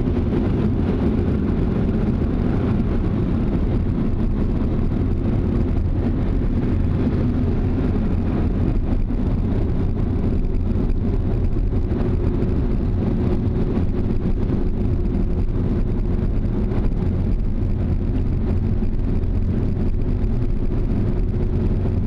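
Onboard blower dryers of a Ryko SoftGloss XS 2.0 in-bay rollover car wash blowing air over the car, a steady rush heard from inside the car's cabin.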